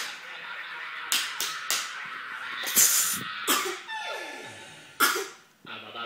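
A toddler's hands slapping on a tiled floor, a handful of sharp smacks, with a voice sliding down in pitch about four seconds in.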